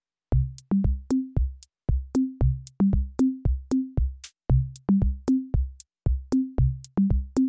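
Background music: an electronic drum-machine beat of low kicks and short pitched low notes with sharp clicks, starting after a brief silence about a third of a second in.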